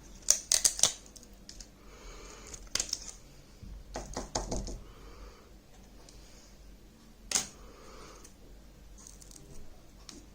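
Sharp clicks and taps from the parts of a dismantled tablet being handled. They come in a few short clusters: the loudest about half a second in, more around three and four seconds, and a single sharp click about seven seconds in.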